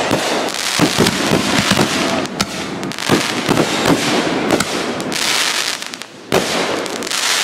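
Aerial fireworks going off: many sharp cracks and bangs in quick succession. The noise briefly eases about six seconds in, then another loud burst follows.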